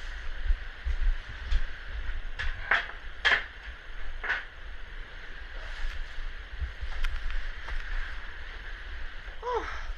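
Blizzard wind buffeting the microphone with a low, constant rumble and a steady hiss of blowing snow. Several short, sharp sounds come between about two and a half and four and a half seconds in.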